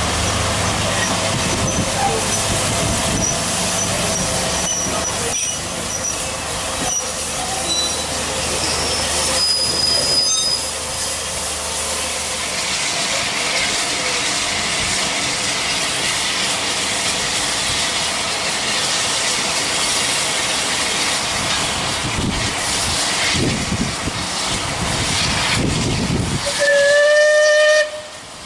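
Bulleid Battle of Britain class steam locomotive and its train: the low rumble of the train rolling past for the first twelve seconds or so, then a steady hiss of steam from the approaching engine's cylinder drain cocks. Near the end, one loud steam-whistle blast of about a second.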